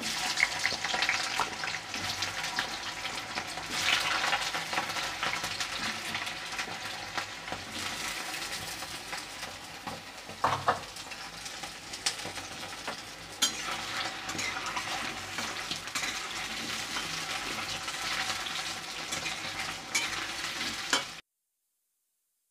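Potato chunks frying in hot oil in a kadhai: a steady sizzle with scattered sharp clicks, cutting off suddenly near the end.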